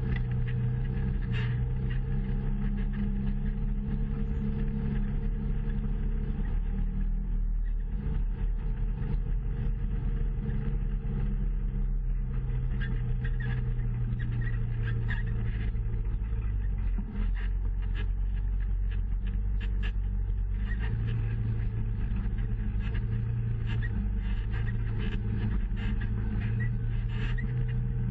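Off-road vehicle engine running steadily as it crawls over a rocky trail, its pitch shifting with the throttle about eight seconds in and again past the twenty-second mark. There are frequent small knocks and rattles from the ride over rocks.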